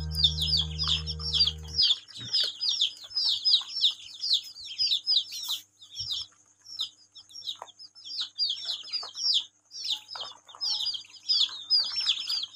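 Chicks and ducklings peeping nonstop: a fast stream of high, downward-sliding peeps, several a second. Background music underneath stops about two seconds in.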